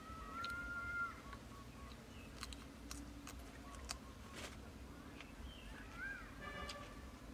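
Birds calling outdoors: a held whistled note about a second long at the start, and a short bending call followed by a harsher call near the end. In between come a few sharp crunching clicks from chewing crispy fried frog.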